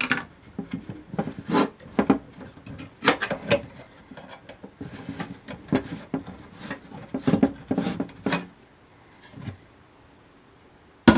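Irregular clicks, knocks and rubbing as hardware is handled: circuit boards and parts of an electronics enclosure being pulled out and set down. The handling goes quiet about eight and a half seconds in, and one sharp click comes near the end.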